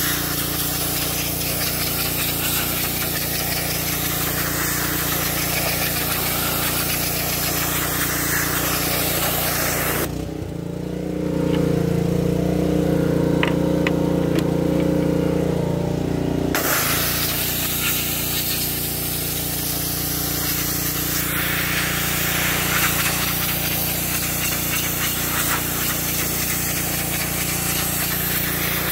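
Pressure washer spraying a plastic truck grille on concrete: a steady hiss of water spray over the machine's running hum. About ten seconds in, the spray stops for some six seconds while the machine keeps running, then it starts again.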